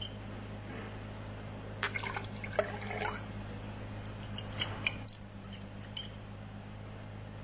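Liquid swirling and slopping in a glass flask, with a few small glass clinks and taps about two, three and five seconds in, over a steady low hum. The flask is being swirled to lay down a silver deposit on the glass.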